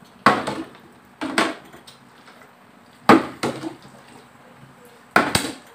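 Partly filled plastic bottle flipped and landing on a glass tabletop: four sharp knocks spread over the few seconds, some with a quick second knock as it bounces or tips over.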